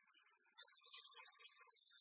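Near silence, with only a very faint, heavily compressed background sound.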